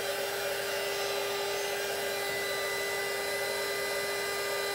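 Handheld electric embossing heat gun running steadily, a rush of blown air with a steady motor whine.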